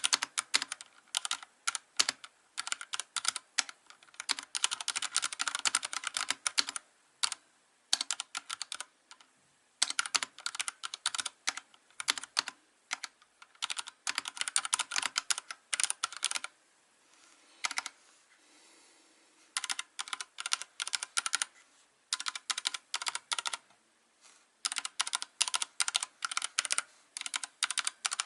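Typing on a Vortex Race3 mechanical keyboard with Cherry MX Silver linear switches: quick runs of key clicks and bottom-outs in bursts of a few seconds, broken by short pauses.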